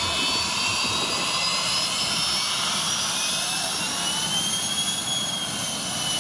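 Jet engines of a McDonnell Douglas MD-80-series airliner running at high power, a steady roar with a high turbine whine that rises in pitch partway through.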